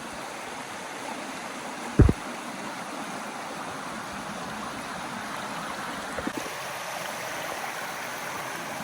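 Steady rush of flowing water, a stream or waterfall, with a single low thump about two seconds in and a couple of faint knocks later.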